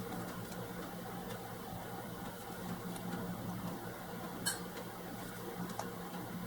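A steady low hum in a small room, with a few faint clicks and taps of trading cards being handled, the sharpest about four and a half seconds in.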